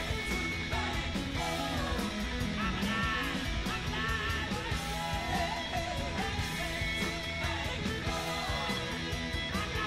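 Background rock music with guitar and a singing voice.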